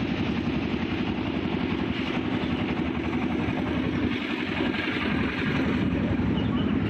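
Large bus diesel engine idling steadily, a continuous low throb with a fast, even pulse.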